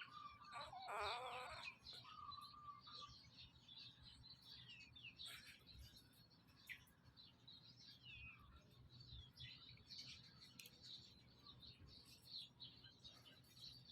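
Faint, high-pitched chirps and squeaks from small animals, many short calls in quick succession, with a louder wavering call about a second in.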